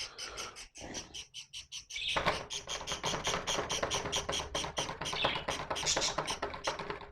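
Pet parrots chirping in a rapid, even series of high chirps, about six or seven a second, growing louder and denser about two seconds in.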